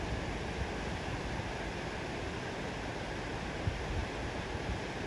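Steady outdoor rushing noise with irregular low rumbles of wind buffeting the microphone.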